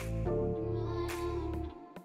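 Background music: a gentle instrumental track with sustained bass notes and sharp percussive strikes, dropping away about a second and a half in.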